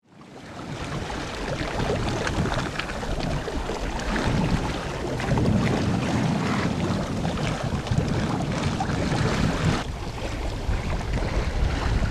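Water rushing and splashing along the hull of a sailing sloop under way as its bow wave breaks and foams against the side, with wind buffeting the microphone. It fades in over the first second.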